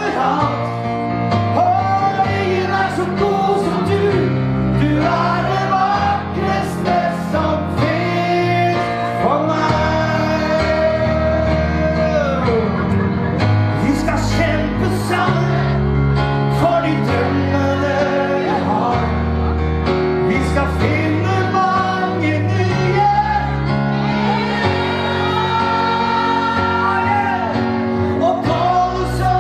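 Live pop ballad: a male singer's amplified voice over a keyboard accompaniment, with long held, wavering notes.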